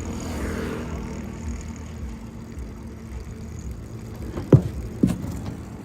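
Diesel tractor engine idling steadily, with two sharp metallic knocks about half a second apart near the end.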